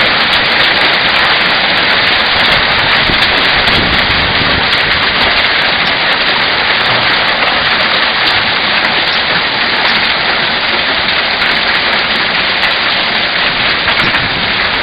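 Heavy rain and hail pelting down in a steady, dense hiss during a severe hailstorm.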